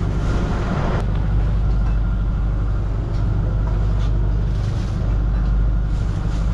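A boat's engine running steadily, a low hum that does not change, with one sharp click about a second in.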